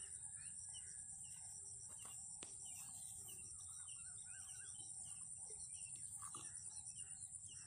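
Small birds chirping over and over, with a steady high-pitched insect drone behind them and a single faint click about two seconds in.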